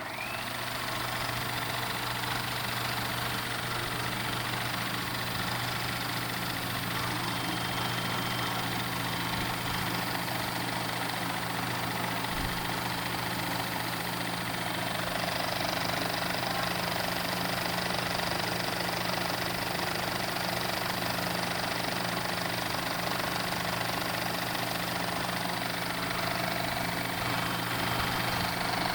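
Cinema film projector running steadily, a continuous mechanical whir with a low hum underneath.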